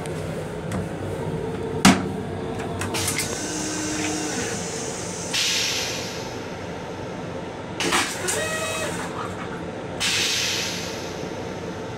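Flush cycle of a Metro-North M7 railcar's stainless-steel toilet: a sharp click about two seconds in, a hiss lasting about a second midway, a clunk as the bowl empties about two-thirds in, then a second hiss near the end. Under it the train's steady running rumble.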